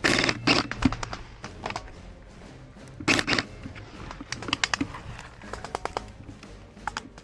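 Airsoft guns firing short rapid bursts of sharp clicks, one just after the start and another about three seconds in. Scattered single clicks and crackles follow.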